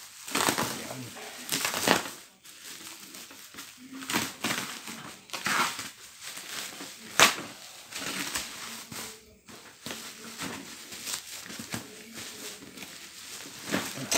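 Bubble wrap being handled and pulled off a parcel: irregular rustling and crinkling, with one sharp snap a little past the middle.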